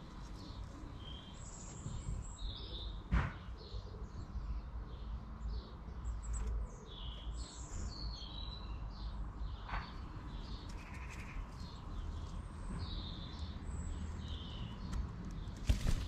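Small wild birds chirping and calling, many short high chirps scattered throughout, over a low rumble of wind or background noise, with a few sharp clicks or knocks at about 3 s, 10 s and near the end.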